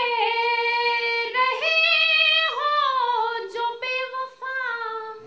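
A woman singing an Urdu ghazal verse solo and unaccompanied, in long held notes that bend and slide between pitches, with short breaks between phrases in the second half.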